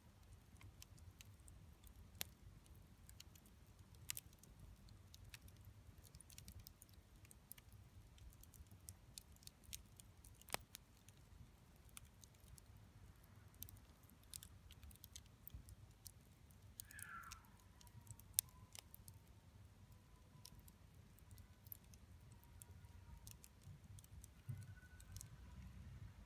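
Wood campfire crackling faintly, with sparse sharp pops and snaps over a low rumble. About two-thirds of the way through a faint thin whistle-like tone drops in pitch and then holds steady until near the end.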